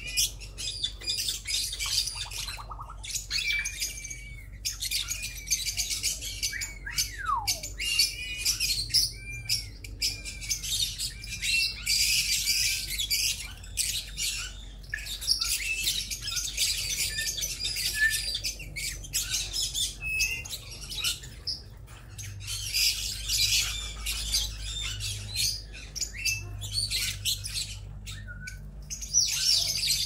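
A flock of small aviary parrots, lovebirds, chattering continuously with shrill chirps and squawks, many birds calling over one another. One long falling whistle stands out about seven seconds in.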